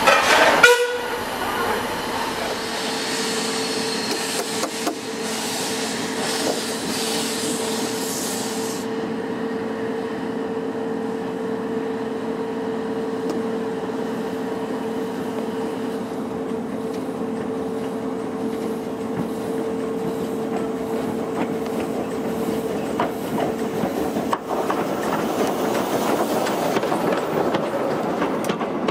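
Peckett steam locomotive and its carriage on the move: a steady rumble of the train, with a single held whistle-like tone over it for about twenty seconds that then stops, leaving the running noise of the train.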